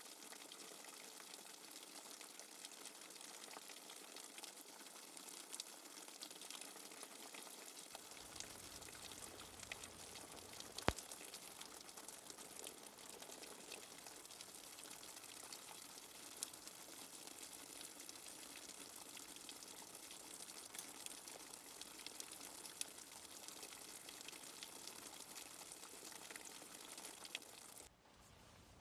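Steady rain falling, a fine even hiss full of small drop ticks, with one sharp click about eleven seconds in. Just before the end it drops suddenly to a quieter hiss.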